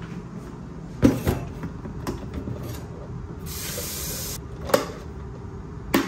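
Tap water running into a plastic electric kettle for about a second, with a few sharp plastic clicks and knocks from handling the kettle and opening and snapping shut its hinged lid.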